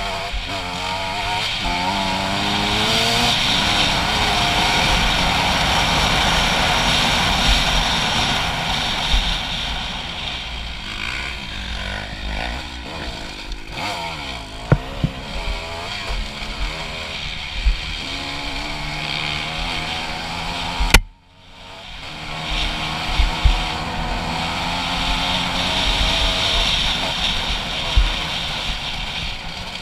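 Honda CRF250 dirt bike's single-cylinder four-stroke engine with an HGS aftermarket exhaust, ridden along a dirt trail, the revs rising and falling over and over as the throttle is worked. About two-thirds of the way through, the sound drops out for a moment and then builds back up.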